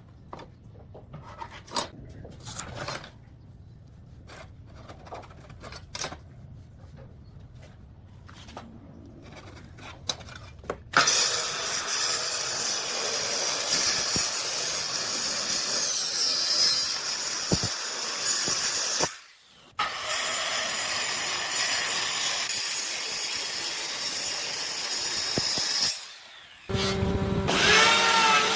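Scattered knocks and clicks of wood being handled. About a third of the way in, a power tool starts working wood with a loud, dense noise. It stops briefly twice, and near the end a motor whine comes in, shifting in pitch.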